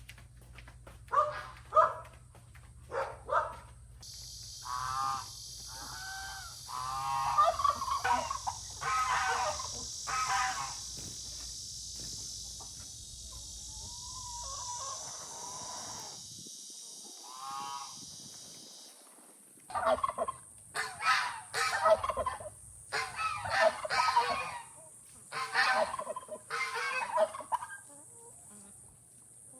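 Farm poultry calling over and over in short pitched calls, in two bouts with a lull in the middle. A steady high hiss runs under the first half.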